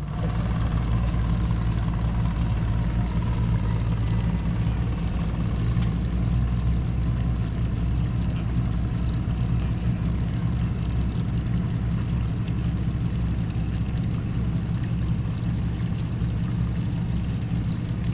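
Boat's outboard motor running steadily under way, with a low hum and a constant rush of wind and water.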